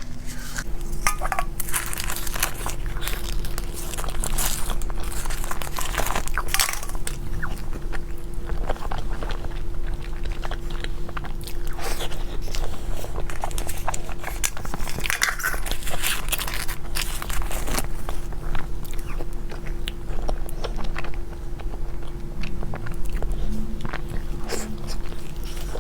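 A person biting and chewing snow-skin mochi (xuemeiniang) close to the microphone, in irregular bites and chews. A faint steady hum runs underneath.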